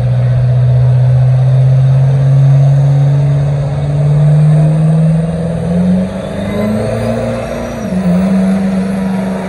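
Diesel pickup engine revving hard under load while pulling a weight-transfer sled, its pitch climbing steadily for about six seconds. It dips briefly near the end and picks up again, and a high whine rises with it just past the middle.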